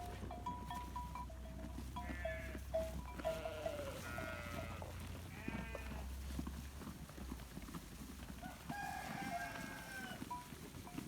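Sheep bleating: four or five separate wavering calls, each up to about a second and a half long.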